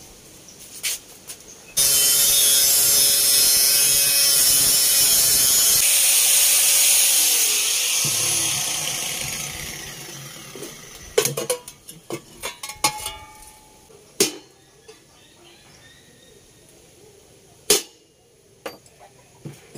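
A power tool's motor runs loudly for about six seconds and then dies away. Then steel tools clink on the workbench, with scattered knocks and one sharp hammer blow on the steel cylinder near the end.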